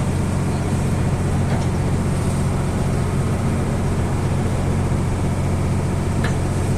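Boat engine running steadily: a low, even drone that does not change.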